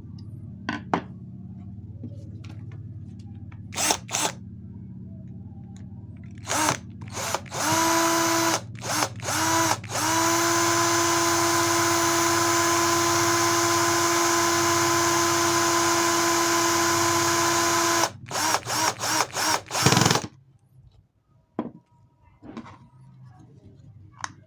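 A 775 DC motor driving a 3D-printed water pump, switched on and off in short bursts, then running at a steady high-speed whine for about eight seconds, then pulsed several more times before stopping.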